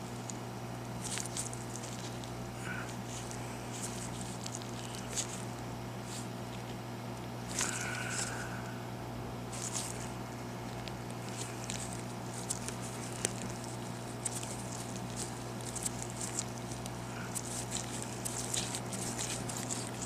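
Small metallic clicks and scrapes of a screwdriver working at the tiny side-panel screws of an iPhone 6, over a steady hum. There is a brief squeak about eight seconds in.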